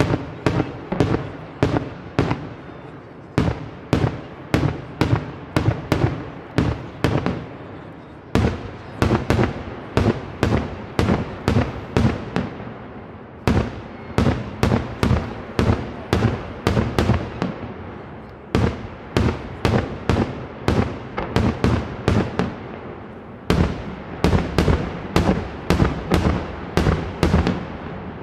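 Daytime fireworks display: aerial shells bursting in a rapid string of sharp bangs, about three a second, coming in runs of several seconds with brief lulls between them. Each bang echoes off the surrounding hills.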